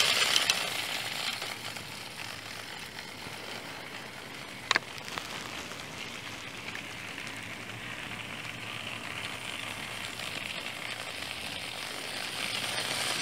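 Clockwork toy train's wound spring motor whirring as the engine runs along plastic track pulling wagons, loudest as it passes close and fading as it moves away. A single sharp click about five seconds in.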